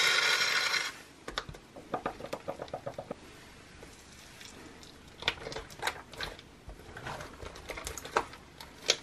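A foam pump bottle hissing out white foam onto slime, cutting off about a second in. Then hands spread and knead the foam into sticky slime, with scattered soft squishing clicks and crackles.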